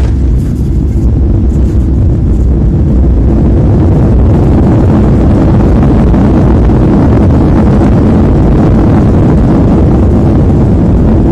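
Boeing 737-800's CFM56-7B jet engines in reverse thrust during the landing roll: a loud, steady roar that jumps up at the start and grows fuller and brighter a few seconds in.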